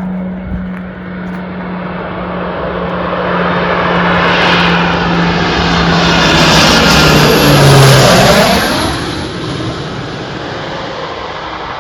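Cal Fire fixed-wing aircraft passing close by. Its engine drone grows louder over several seconds, peaks about two-thirds of the way in, then drops in pitch and fades as it goes past.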